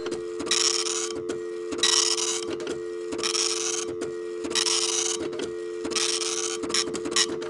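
Printer running: a hissy sweep about every 1.3 seconds, like the print head crossing the page, with small mechanical clicks between passes, over a steady motor hum.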